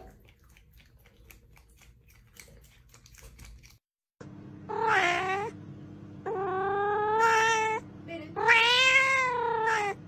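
A cat meowing loudly three times, long drawn-out yowls of about one to one and a half seconds each, starting about four and a half seconds in. Before that there are only faint scattered clicks.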